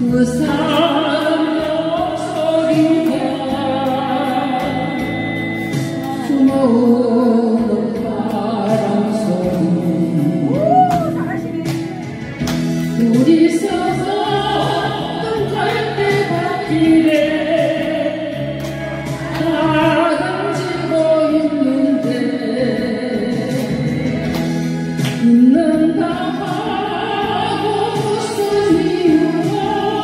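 A woman sings a Korean song into a hand-held microphone over a karaoke backing track. She sings in long, wavering phrases, with the accompaniment running underneath.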